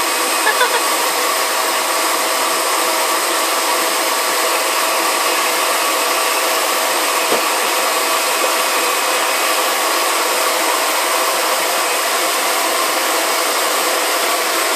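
Loud, steady airport background noise: an even rushing noise with faint steady hums running through it.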